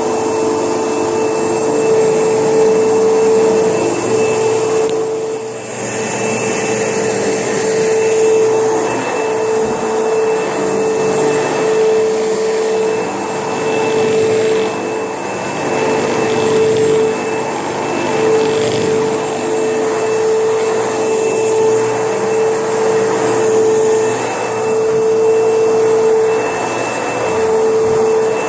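Pro-Team ProGen 15 upright vacuum cleaner running, a steady motor whine that dips briefly in level about five seconds in.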